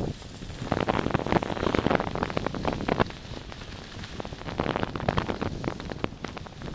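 Skis sliding and scraping over packed snow on a downhill run, with wind buffeting the microphone. The noise rises and falls in loudness.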